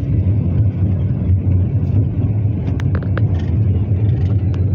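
Steady low rumble of a car's engine and tyres heard from inside the moving car, with a few faint ticks around the middle.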